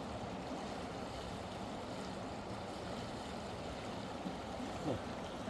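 Mountain river water rushing steadily, with a short thump near the end.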